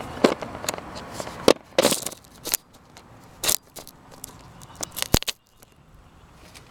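Handling noise on the camera's microphone: an irregular string of sharp clicks and knocks with fabric rubbing and rustling as the camera is gripped against a jacket sleeve. It grows quieter after about four seconds.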